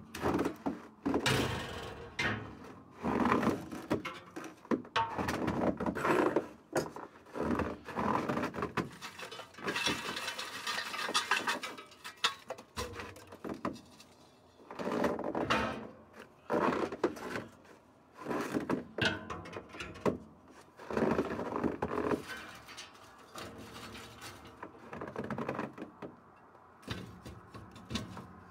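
Charcoal being rummaged and shifted by hand in the steel charcoal basket of a drum smoker: irregular clattering and scraping of coals, with knocks of metal as the cooking grate is lifted off.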